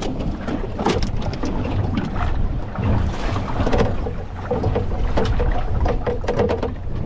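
Wind buffeting the microphone over the rumble of a boat in choppy water, with scattered knocks and clatter.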